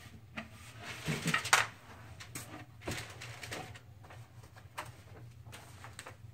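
Handling noises of a particleboard desktop being laid flat on carpet: a scattering of soft knocks and rustles, the loudest about a second and a half in.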